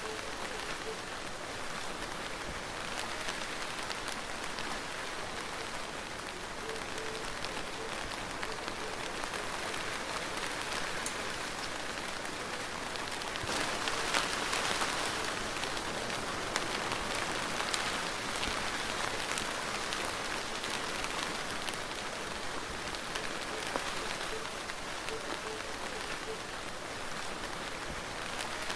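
Steady rain falling, an even hiss with scattered drop ticks, growing a little heavier about halfway through.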